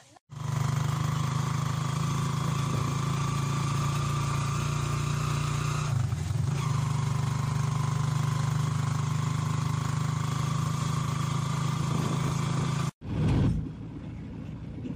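Steady drone of a vehicle's engine running while riding along, with a brief wobble about six seconds in. It cuts off abruptly near the end, giving way to a quieter rumble.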